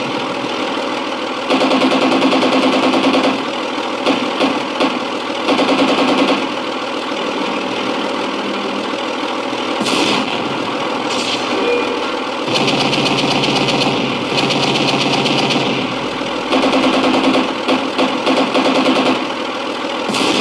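Simulated JS-2 heavy tank engine from an RC tank sound board's sound pack. It idles and rises to a louder running note several times, then settles back, with a short sharp noise about ten seconds in.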